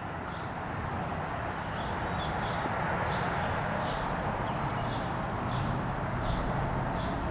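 Steady outdoor background noise with a low rumble like distant traffic, with short high chirps about twice a second.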